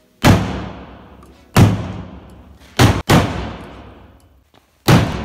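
The glass-reinforced polypropylene hull of an Armerlite canoe being struck hard five times, two of the blows in quick succession midway, each one dying away over about a second. It is a test of how much impact the hull can take.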